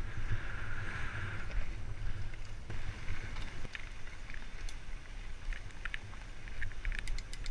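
Bicycle ride noise on a bike-mounted camera: a steady low rumble of wind and vibration on the microphone as the tyres roll over a dirt trail, with scattered clicks and rattles from the bike in the second half.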